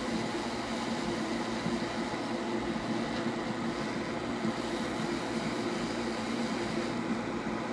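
Hakko fume extractor fan running with a steady whirring rush of air and a low hum, drawing off the flux smoke from hot air desoldering.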